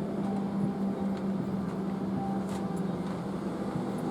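Steady drone of a vehicle interior: a constant low hum over an even rush of noise, with a few faint clicks.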